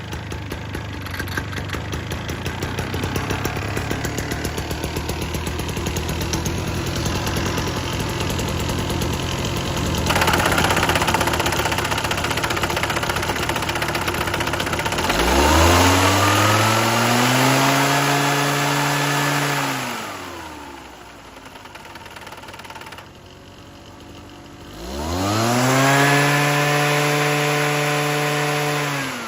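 Small engine of an Ochiai V8S tea harvester running at a rough, low idle, then throttled up twice: each time the pitch rises smoothly, holds high for a few seconds and drops back to idle.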